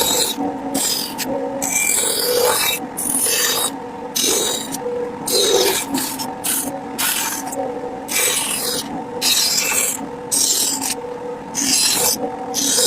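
A file or rasp drawn repeatedly across wood, in rhythmic strokes of scratchy hiss about one to two a second, shaping a carved wooden piece.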